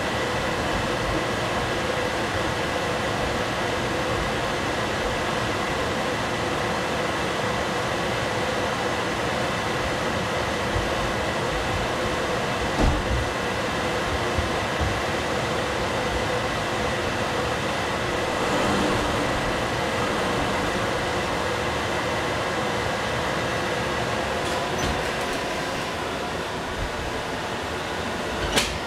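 Steady mechanical whirring with a constant hum and a high whine, like a running fan, with a few faint knocks about halfway through and a bump near the end.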